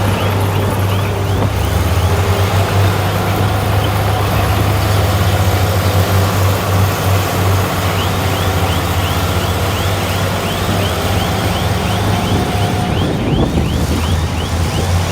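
Heavy earthmoving machine's diesel engine running steadily, with a quick run of short high chirps repeating about three times a second, plainest in the second half.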